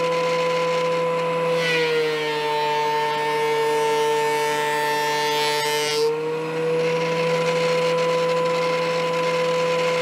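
DeWalt DW735X thickness planer running with a steady high whine. About a second and a half in a board feeds through the cutterhead: the pitch drops slightly under the load and a rough cutting noise joins it, then around six and a half seconds in the board clears and the whine returns to its unloaded pitch.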